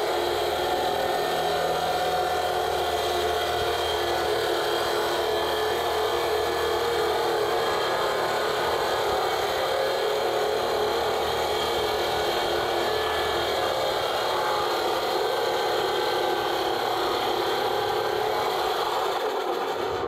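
Electric concrete saw cutting through old, thick concrete on a wet slab: a steady, loud grinding of motor and blade. It stops abruptly near the end when the circuit breaker trips under the hot motor's load.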